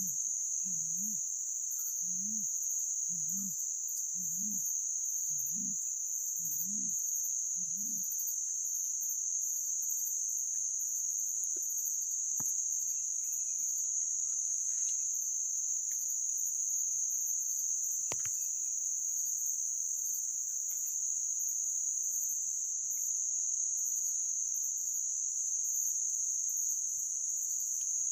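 Forest insects keep up a steady high-pitched drone. In the first eight seconds a series of low hooting notes repeats about once a second, and a few faint chirps and two sharp clicks come later.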